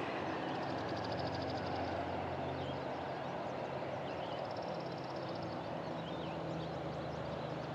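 Outdoor background sound: a steady hiss and a low, even hum, with a few faint high chirps and two short, rapid high trills.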